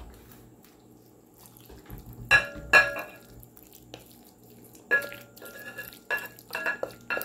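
Glass mixing bowl and glass pie dish clinking as a spoon scrapes a thick chicken and vegetable mixture from one into the other. Sharp ringing clinks: the two loudest close together about two and a half seconds in, then a run of lighter ones from about five seconds in.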